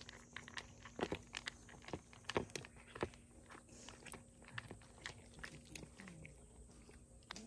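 Cats eating dry kibble from bowls: irregular crisp crunches and chewing clicks, the loudest about a second in and again around two and a half to three seconds.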